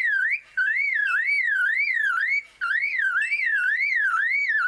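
Superb lyrebird mimicking a car alarm: a whistled, siren-like tone sweeping up and down about twice a second. It breaks off briefly twice, about half a second in and again about two and a half seconds in.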